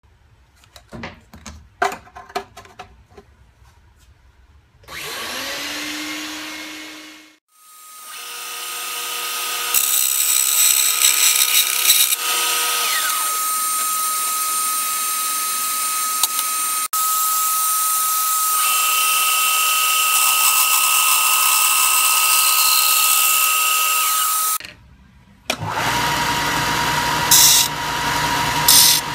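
Small bench band saw running and cutting an eighth-inch aluminium strip, with its vacuum dust extraction going: a loud, steady machine noise with a high whine, after a few handling knocks. It stops, and near the end a belt sander starts and grinds the cut edge of the aluminium.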